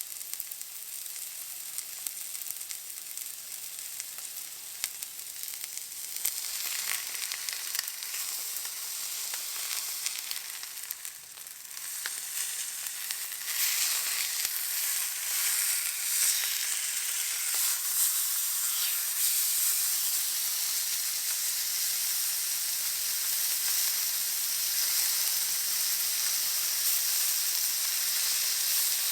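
Steak searing in a hot pan: a steady sizzle with fine crackling of fat, which dips briefly about eleven seconds in and then gets clearly louder, staying that way.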